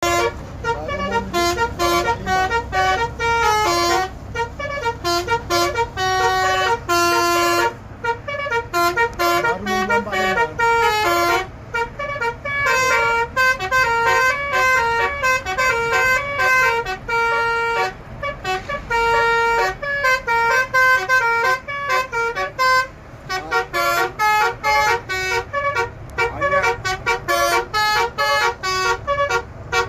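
Bus 'telolet' musical air horn playing a fast melody of short, changing notes, several horn tones sounding together, with now and then a longer held note.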